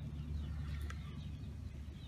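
Birds chirping faintly over a steady low rumble, with a single soft click about a second in.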